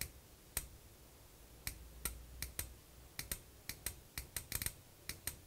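12-volt micro 4-pin automotive relay clicking as it is switched on and off again and again: a string of about twenty sharp, irregular clicks, some coming in quick succession.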